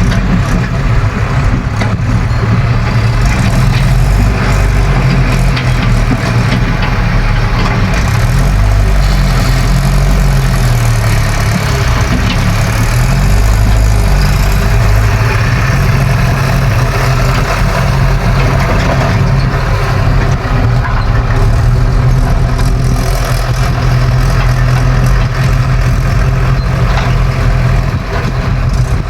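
Diesel engines of an excavator and tractors running steadily, the engine note sliding down and back up for a few seconds about a third of the way in.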